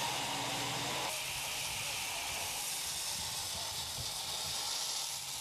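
Steady hiss of water spraying from fire hoses onto smoking rubble. A steady low hum sits under it for about the first second, then stops.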